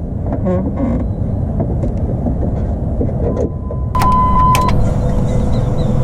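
Low steady rumble, then about four seconds in a short electronic beep with clicks as the Dodge Neon SRT-4's turbocharged four-cylinder engine starts. It then runs at a higher, steady level with a faint steady whine.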